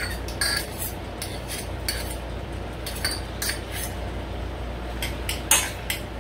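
Metal utensils scraping and clinking against a stainless steel saucepan as diced garlic is stirred into a butter sauce, with irregular sharp clinks every half second or so over a steady low hum.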